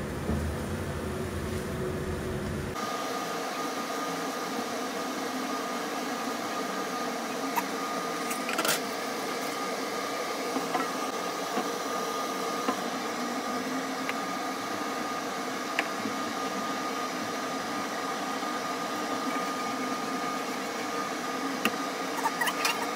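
Steady hum and hiss of an induction hob and a stir-fry in a wok. About three seconds in, a low rumble drops away and a thin steady whine starts. Now and then a spatula clicks and scrapes against the wok and a metal bowl, with a cluster of clicks near the end.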